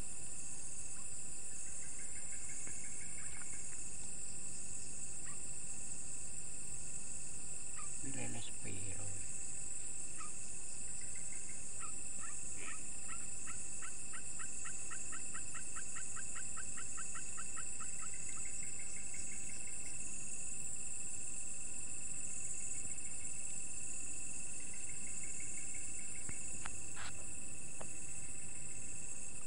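Night chorus of crickets and other insects: a steady high-pitched shrill with a second constant tone beneath it, joined every few seconds by short trilled calls and, in the middle, a run of rapid even pulses.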